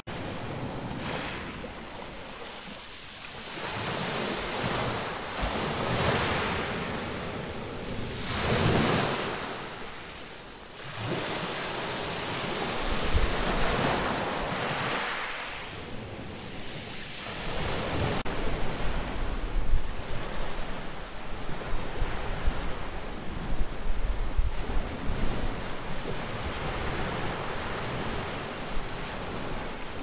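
Small waves of a calm Black Sea washing ashore, swelling and fading every few seconds. In the second half, wind buffets the microphone with low rumbling gusts.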